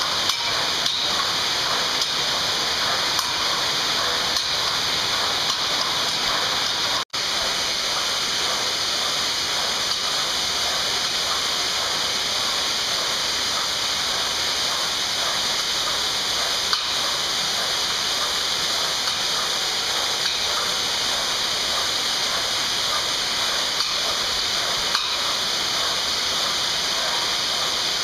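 A steady, even rushing hiss, with no rise and fall that follows paddle strokes, broken by a split-second dropout about seven seconds in.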